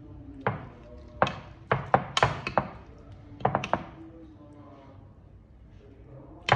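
Metal spoon knocking and scraping against a glass Pyrex baking dish while scooping out a portion of baked potato casserole: clusters of sharp clinks and taps, with one of the loudest near the end.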